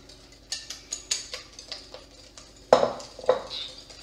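Utensil clinking and knocking against a mixing bowl while banana bread batter of mashed bananas and eggs is mixed. The clinks are irregular, and the two loudest knocks come about three quarters of the way through.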